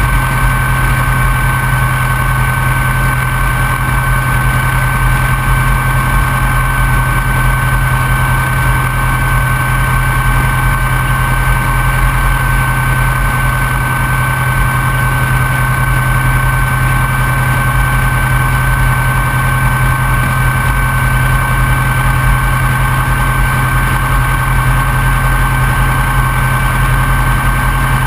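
Open-cockpit biplane's piston engine idling steadily, heard close up on the airframe, with a steady high tone running above the low engine drone.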